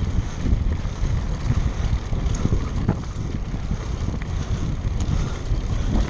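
Wind buffeting the microphone with a steady, dense low rumble, and a few short knocks and rattles scattered through it, typical of on-board audio from a fast ride over rough ground.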